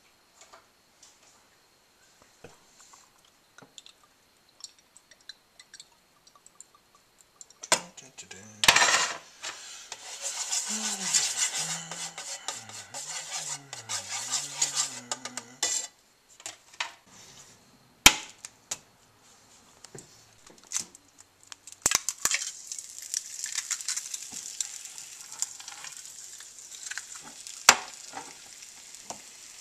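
Pots, pans and utensils clattering on a stovetop, with sharp knocks and a dense stretch of hissing in the middle. In the last third, oil in a nonstick frying pan sizzles steadily with small crackles as an egg fries.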